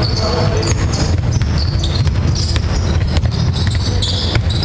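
A basketball being dribbled on a wooden hall court, with a run of sharp bounces and players' shoes squeaking on the floor, over the hall's steady low rumble and echo.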